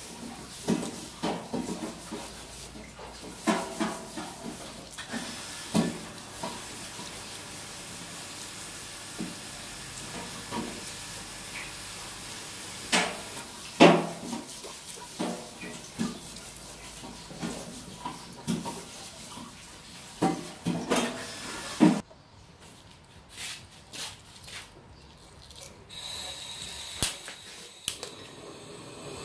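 Hard-boiled eggs being cracked and peeled by hand: irregular clicks and crackles of breaking eggshell, a few of them sharp and loud. About three-quarters of the way through the sound drops to a quieter stretch with only scattered clicks.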